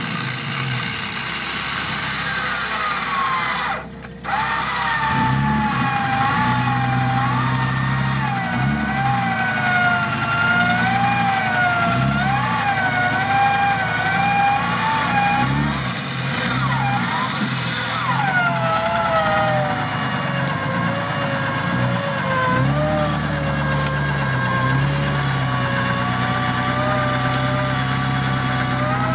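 Jeep Wrangler's 4.0-litre straight-six running with the revs rising and falling, over a winch whining under load with a pitch that wavers up and down as the cable hauls the Jeep up a steep bank.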